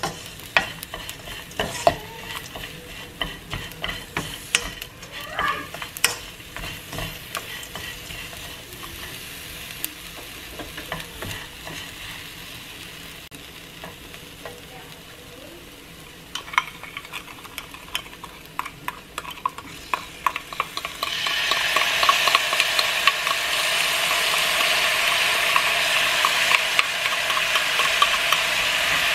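Wooden spoon stirring dried anchovies in a nonstick frying pan, with light scraping, clicks and a faint sizzle. About two-thirds of the way through, a much louder, steady sizzle with fine crackling starts as the sauce hits the hot pan.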